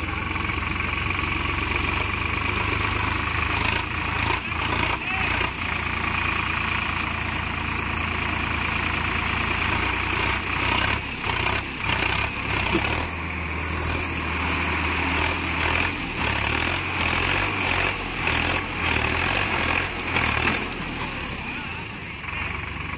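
Sonalika DI-50 tractor's diesel engine running hard under load as it strains to pull a hitched trolley out of water and mud, with the rear wheel churning the water. The engine note swells and dips repeatedly, with sharp knocks and splashes in bursts.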